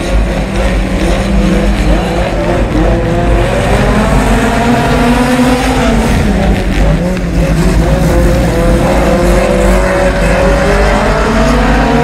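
Honda Civic EG hatchback dirt-track race car's four-cylinder engine running hard at racing speed, its pitch rising and falling repeatedly as the throttle comes on and off through the turns.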